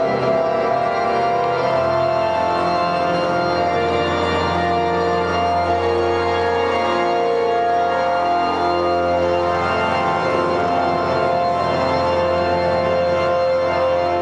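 Organ playing slow, sustained chords over a held bass note, the bass dropping to a lower note about two seconds in.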